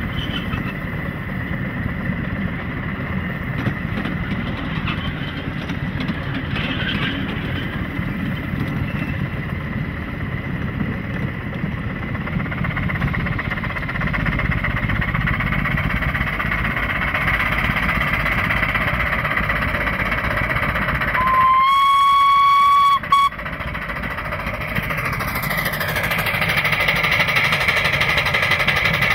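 Oil-fired 3-inch-scale live steam locomotive running along the track with a continuous rumble. Partway through it gives one steam whistle blast of about two seconds, a single clear note with overtones that stops sharply.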